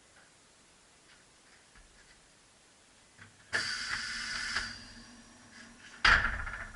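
Tyre changer at work on a tractor tyre: about a second of loud rushing noise over a steady low hum, then, some two seconds later, a shorter and louder blast with a heavy low thump.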